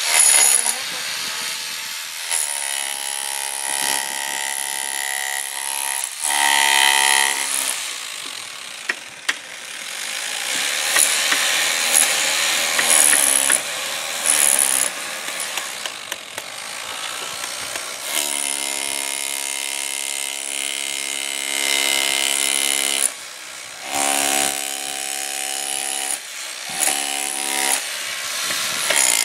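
Electric chipping hammer with a chisel bit hammering old concrete off pool coping stones, running in bursts of a few seconds and stopping between them. Harsher, rougher masonry-tool noise fills the gaps.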